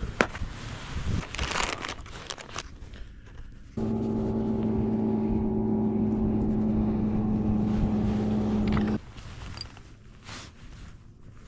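Light plastic clicks and knocks from a clear tackle box being handled. About four seconds in, a small electric motor starts a steady, even hum, runs about five seconds and cuts off suddenly.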